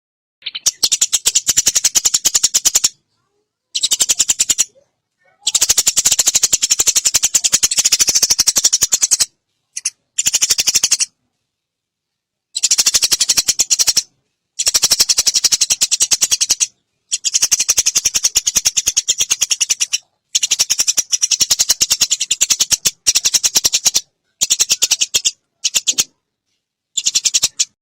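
Eurasian tree sparrow giving long, rapid chattering calls, a fast high-pitched rattle in runs of one to four seconds with short silent breaks between them.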